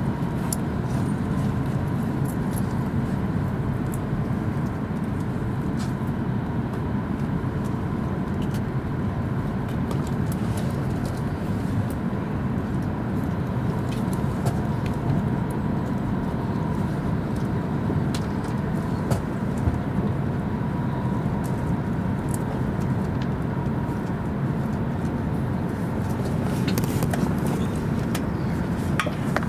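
Steady low running noise of an E5 series Shinkansen at speed, heard from inside the passenger cabin, with a faint steady whine and occasional light clicks. A little more hiss comes in near the end.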